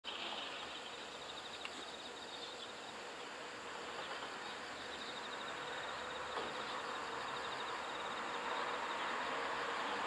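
Outdoor ambience of insects trilling, a rapid pulsing high chirr, over a steady rushing hiss that grows slightly louder toward the end.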